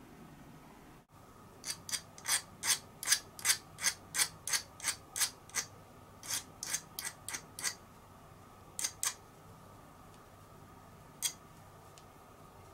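Small metal file scraping a small metal part held in a vise: a quick run of short, hissing strokes about three a second, then a pause and a few last strokes.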